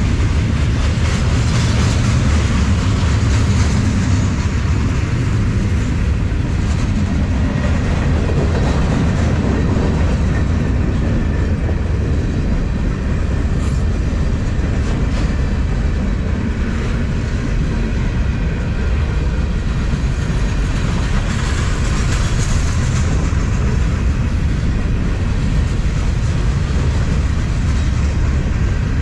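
Freight train's cars rolling steadily past, steel wheels running on the rails with a continuous low noise.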